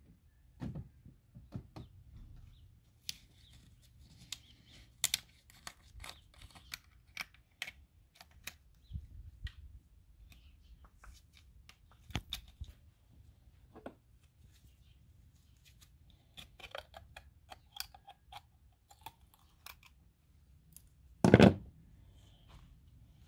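Plastic bottles and their caps being handled: scattered light clicks, taps and crinkles, with one much louder knock near the end.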